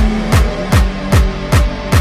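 Background electronic music with a heavy, deep kick drum about two and a half beats a second over a steady bass line.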